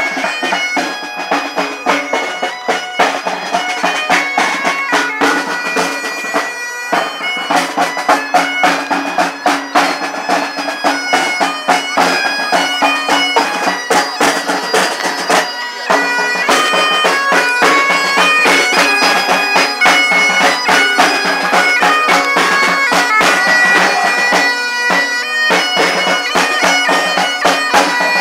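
Bagpipes playing a marching tune over their steady drone, with a drum beaten along in time.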